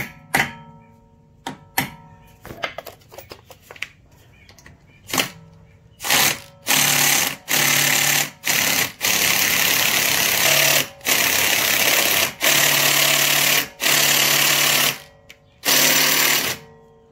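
A few sharp metal knocks, then a cordless impact wrench hammering in repeated trigger bursts of about half a second to two seconds each, on a brake-assembly bolt seized by road salt.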